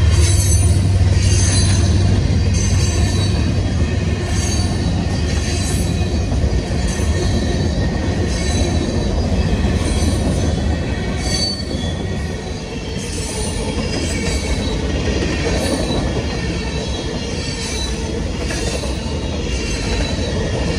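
Freight train of loaded covered grain hoppers rolling past, steel wheels rumbling on the rail with intermittent high-pitched wheel squeal throughout. A diesel locomotive's deep engine rumble fades in the first couple of seconds as it moves away down the train.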